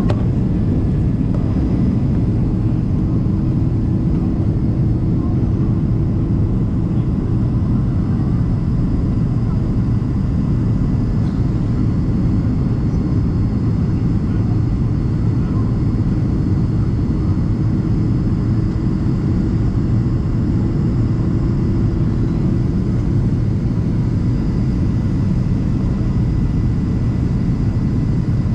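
Boeing 767-300ER cabin noise on descent: a steady drone of engines and airflow heard at a window seat over the wing. A faint low hum runs through it and fades out toward the end.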